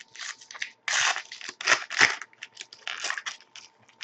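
Trading cards and their packs being handled: a run of short rustling, scraping and crinkling strokes as cards slide against each other and wrappers crinkle, heaviest around one, two and three seconds in.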